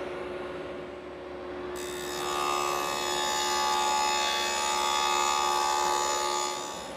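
A stationary power tool running, then cutting a dado in 3/4-inch plywood from about two seconds in until near the end, when the cut stops and the motor tone ends.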